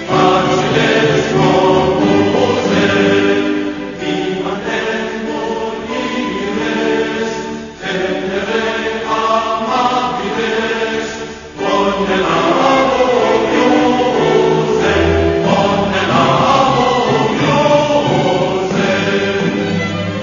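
A choir singing a slow piece in held chords, with two short breaks between phrases.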